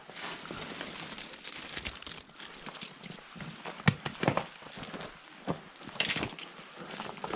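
Dried ears of corn rustling and clattering as a hand digs one out of a wire-mesh corn crib, with a few sharp knocks about four seconds in.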